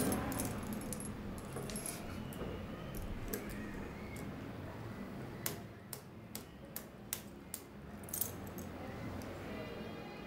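Small metal objects, such as keys, being turned over in the fingers, giving a scatter of light clinks and jingles that are thickest midway, over quiet room tone.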